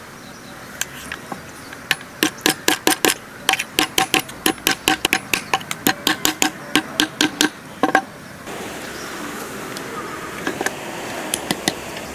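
Rapid hammering, about five sharp ringing strikes a second for around six seconds, stopping about eight seconds in; a steady hiss and a few light clicks follow.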